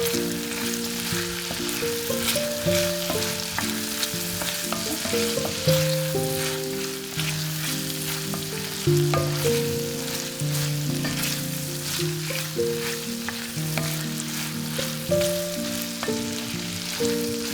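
Food sizzling in oil in a frying pan, with the scrape and clicks of stirring, over soft background music of held notes.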